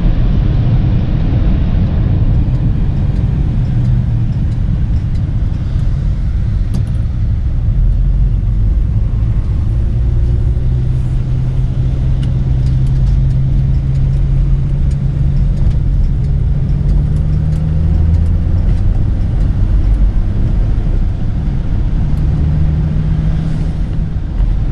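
Rover P4 100's straight-six engine pulling the car along, with steady road rumble; its note climbs slowly for several seconds, drops back, then climbs again near the end.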